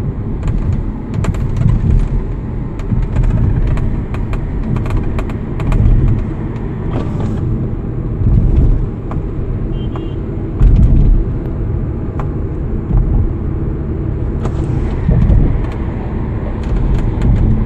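Road and tyre rumble inside a Kia K7 (Cadenza) cabin on the move, with scattered short clicks and ticks: the panoramic sunroof rattling.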